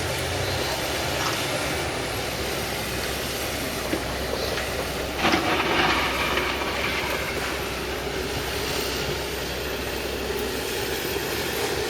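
Excavator working in a river: steady engine rumble mixed with a noisy wash, and a louder noisy burst about five seconds in.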